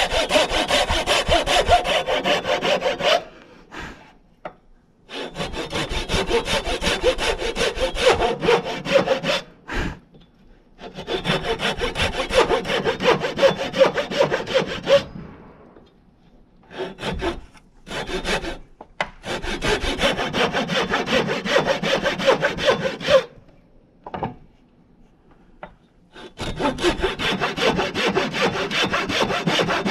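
Hand saw cutting into a rough-sawn wooden timber in quick back-and-forth strokes, in about six bouts with short pauses between them. These are a row of kerf cuts about a quarter inch apart down to a marked line, the first step in straightening and squaring the timber.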